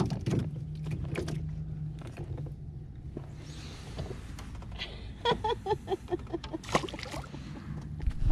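Steady low hum on a small fishing boat, with a small fish thrown back into the water with a splash near the end. About two-thirds of the way through there is a quick run of short pitched calls.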